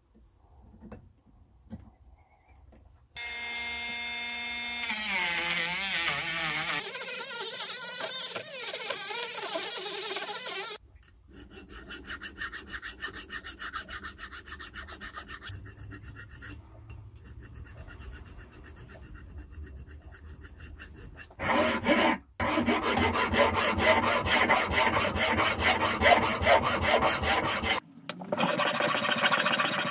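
Hand file rasping in quick back-and-forth strokes across the rusty threaded end of a 1930s Rain King sprinkler's cast-iron arm, cleaning up the thread. Before that, a small motor whines for several seconds, dipping and climbing in pitch, followed by lighter, quieter scraping strokes.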